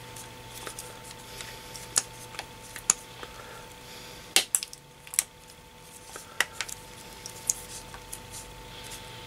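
Scattered short, sharp clicks and taps from an iPhone 6's screen assembly being seated into its housing and handled with a small screwdriver, the loudest about four seconds in.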